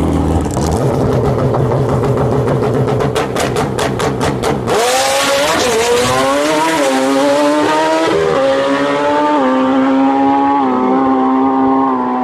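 Drag racing motorcycle's engine held at high revs on the starting line, with a rapid crackle just before launch. About five seconds in it launches, and the engine note climbs and drops through several upshifts as the bike runs away down the strip.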